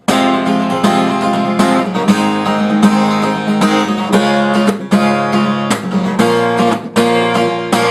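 Acoustic guitar strummed in a steady, driving rhythm of chords, a main strumming pattern combined with a second pattern used as a break.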